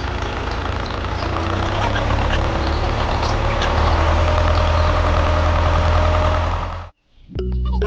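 Small engine of a miniature DIY tractor running steadily, then stopping abruptly about seven seconds in.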